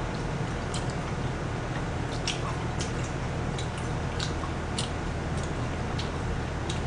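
People chewing and eating jajangmyeon noodles: wet mouth sounds with scattered small sharp clicks, over a steady low hum.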